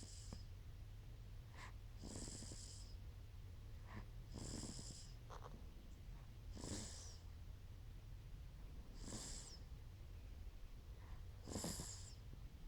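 A four-month-old baby snoring softly in its sleep, one short, hissy snoring breath about every two and a half seconds.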